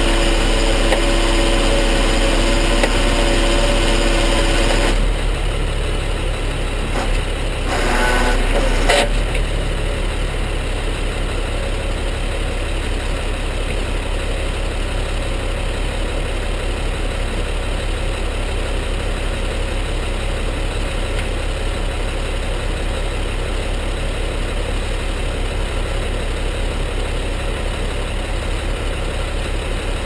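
Tow truck's engine idling steadily. A steady higher hum rides over it for the first five seconds and then stops.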